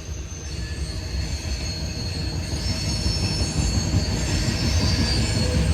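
Freight cars of a long CSX freight train rolling past, with a low rumble and steady high-pitched squealing from the steel wheels, growing slowly louder.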